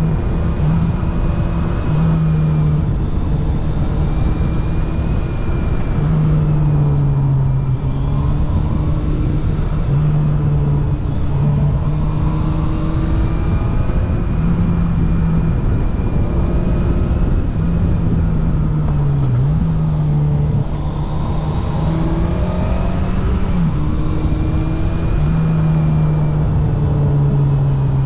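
Yamaha FJR 1300's inline four-cylinder engine running under way, its pitch stepping up and down with the throttle and dipping sharply and recovering twice in the second half.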